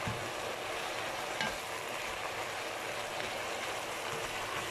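Chicken strips and vegetables sizzling steadily in a hot wok, with two short clicks, one at the start and one about a second and a half in.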